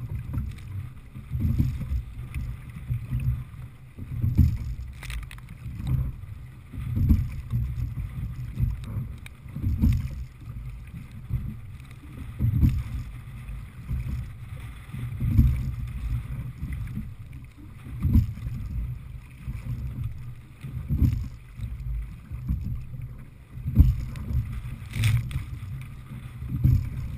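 Open-water rowing boat under way, oars working steadily: water rushing and wind buffeting the microphone swell once per stroke, about every three seconds, with an occasional sharp click from the oars or rigging.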